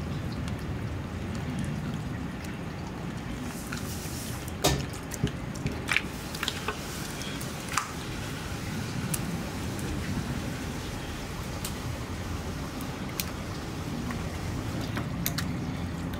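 Bamboo skewers being threaded through raw eel fillets on a wooden board: scattered light clicks and taps, thickest a few seconds in, over a steady low background hum.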